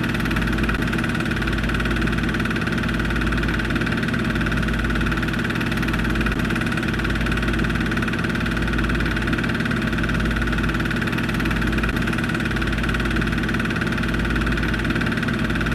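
Film projector running: a steady mechanical whir and hum with a slow, pulsing throb low down.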